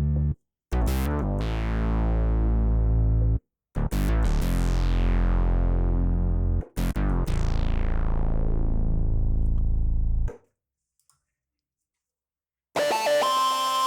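Roland JD-800 synthesizer preset played in the Zenology Pro software emulation: a run of held, full chords, each opening bright and darkening as it sustains, with short breaks between them. Near the end, after about two seconds of silence, a brighter sustained tone with a clear high note comes in.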